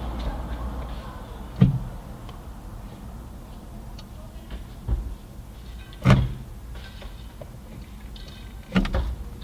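Four sharp clunks, a second or more apart, from a CAE Ultra short shifter being moved through its gates, over a steady low rumble.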